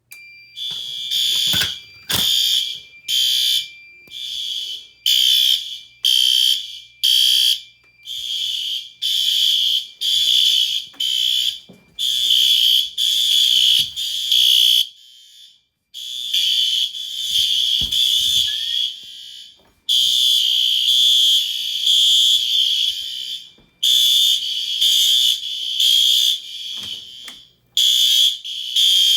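Several System Sensor fire alarm horn strobes set to low volume, sounding the temporal code-3 pattern without synchronization, so their beeps overlap and fall in uneven groups with short irregular gaps. A steady tone sounds under the beeps until about twelve seconds in.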